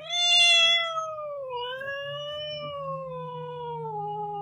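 Domestic cat giving one long, drawn-out meow, loudest in its first second and sliding slowly down in pitch.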